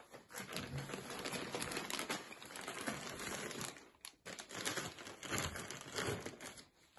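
Plastic wrapping crinkling and rustling as hands handle plastic-packed textiles in a sofa's storage compartment, in two stretches with a short pause about four seconds in.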